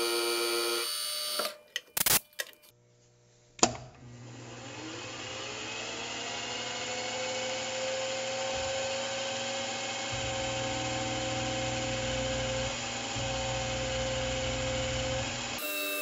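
A few sharp clicks, then the milling machine's spindle starts up, its whine rising in pitch over about two seconds before settling into a steady run as the end mill plunge-cuts the aluminium block.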